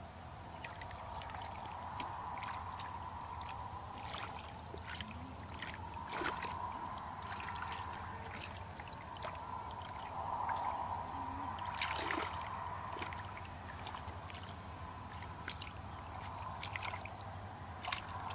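Hands sloshing and splashing through shallow muddy water, with irregular wet squelches and small splashes, as someone gropes in the mud for fish; a little louder about ten to twelve seconds in.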